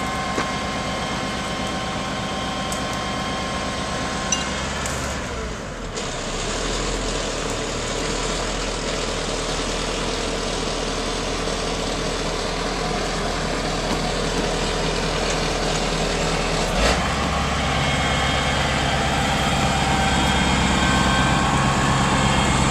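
A large truck's engine running steadily at idle. Its note shifts twice, about five seconds in and again near seventeen seconds, and gets a little louder toward the end.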